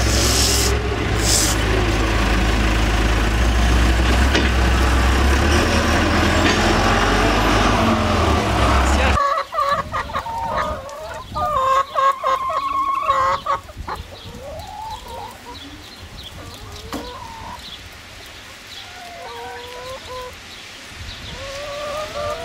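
A JCB telehandler's diesel engine running loud and steady for about nine seconds. After a sudden cut, hens cluck and call with short notes that rise and fall.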